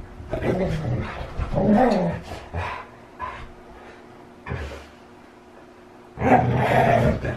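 Siberian huskies vocalizing as they play-wrestle. Their short cries bend up and down in pitch, quieten for a couple of seconds in the middle, and come back in a louder outburst near the end.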